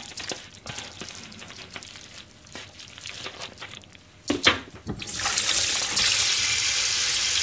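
Plastic food wrap and tray crackling as fish is unwrapped, with a sharp knock about four seconds in. Then a kitchen tap is turned on and water runs steadily into a stainless steel sink as a piece of fish is rinsed under it.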